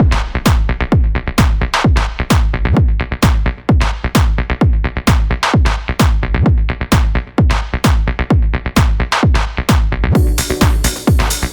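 Electronic dance background music with a steady kick-drum beat, about two beats a second; a brighter, fuller layer comes in near the end.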